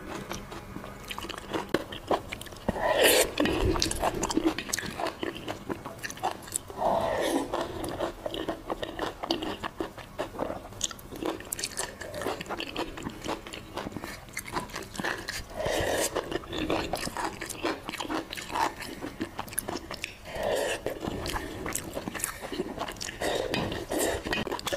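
Close-up eating sounds: chewing mouthfuls of sauce-mixed rice, with wooden chopsticks clicking and scraping against a stainless steel bowl.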